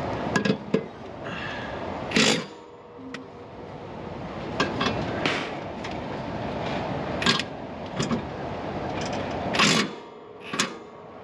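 About ten sharp clanks and knocks at irregular intervals, the loudest about two seconds in and near the end, typical of tools and metal mower parts being handled and set down. A steady rumble of background noise runs beneath them.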